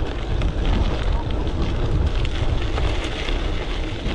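Gravel bike riding over a rocky track: the tyres crunch and the bike rattles with many small knocks over a continuous low rumble.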